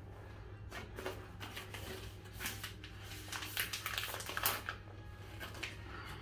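Irregular crinkling and rustling of plastic packaging and cloth being handled and unwrapped by hand, over a steady low hum.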